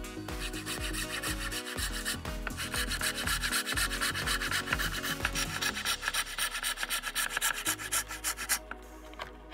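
Small hacksaw cutting balsa wood with rapid back-and-forth strokes, stopping near the end.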